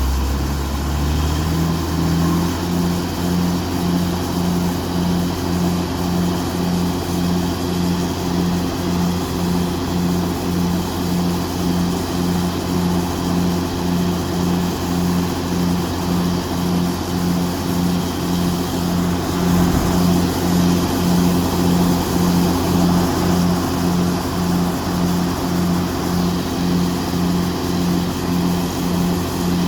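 Diesel engine of heavy farm machinery running steadily under load, with an even pulsing hum of about one and a half beats a second. Its pitch rises over the first couple of seconds as it speeds up, then holds.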